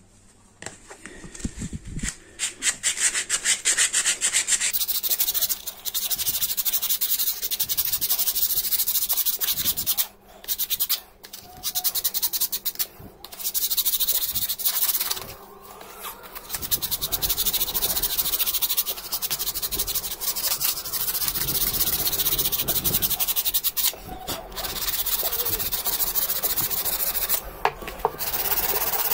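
A hand-held sanding disc rubbed in fast back-and-forth strokes along a hammer's painted wooden handle, giving a scratchy sanding noise broken by several short pauses.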